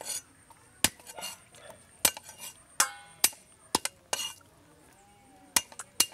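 Cleaver chopping garlic cloves on a round wooden chopping block: about eight sharp knocks at uneven intervals, with brief scraping between strikes.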